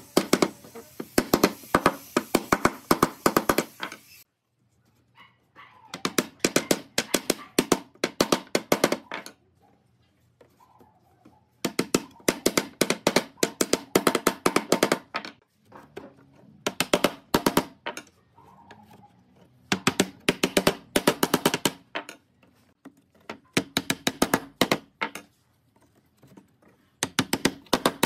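Wooden mallet knocking notched wooden slats down into one another to seat the cross-lap joints of a lattice grid. The knocks come in quick runs of sharp strikes with short pauses between runs.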